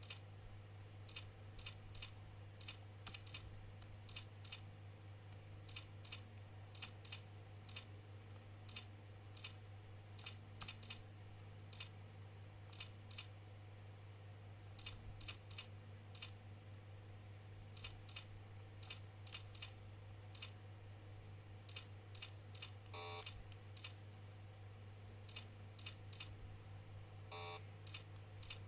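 Faint computer keyboard typing: irregular, light key clicks, a few a second, with two short buzzy rasps late on, over a steady low hum.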